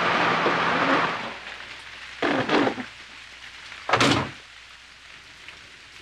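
Heavy rain hissing down, which cuts off abruptly about a second in; then two loud thumps about a second and a half apart, the second one the sharper.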